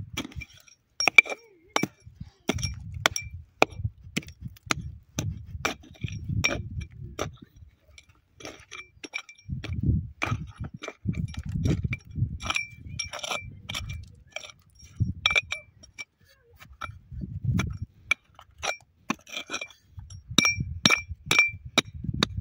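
Small hatchet hacking at dry, stony ground: many irregular sharp clinks of the steel blade striking rock, some ringing briefly, mixed with duller thuds as it bites into the soil.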